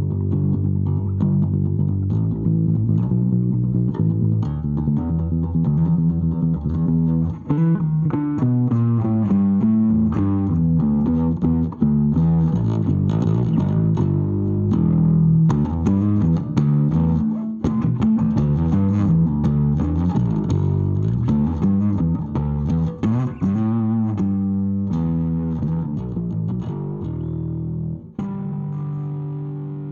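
Bass guitar played through a Jeds Peds Wasteman, a Tubescreamer-style overdrive pedal with a clean blend, running through a line of changing notes. Near the end one note is held and fades out.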